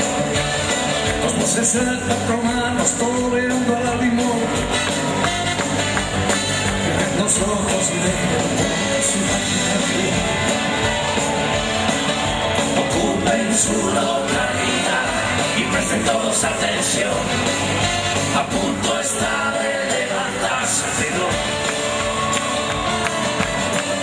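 A live band playing an up-tempo song, with guitars and percussion, recorded from the audience in a large hall.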